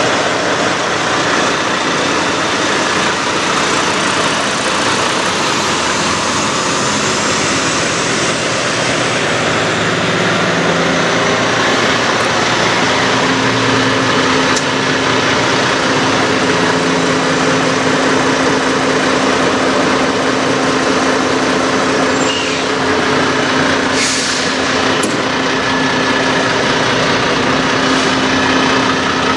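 Diesel engine of a Peterbilt car-hauler semi idling steadily, with a steady hum joining in about halfway and a brief hiss of air about three-quarters through.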